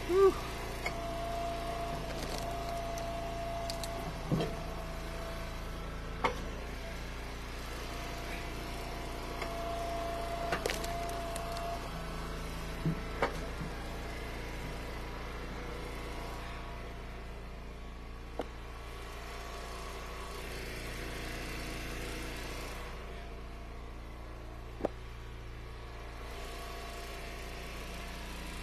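Eastonmade Ultra wood splitter's gas engine running steadily, with a higher tone coming in three times as the hydraulic ram pushes through the hickory rounds. Sharp cracks and knocks of wood splitting and pieces dropping are heard several times.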